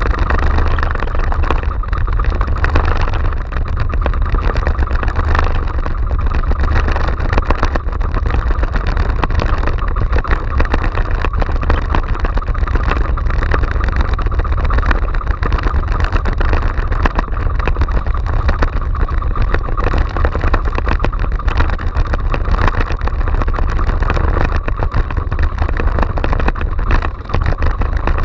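Engine of a motorised outrigger fishing boat running steadily under way, with wind and water rushing past the hull.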